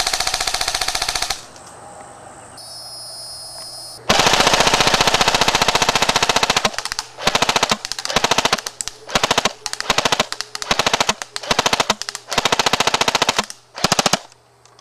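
Echo 1 M4A1 electric airsoft rifle firing on full auto: the rapid even clatter of its gearbox cycling. There is a short burst, a lull, then a long burst of about two and a half seconds, followed by a string of short bursts.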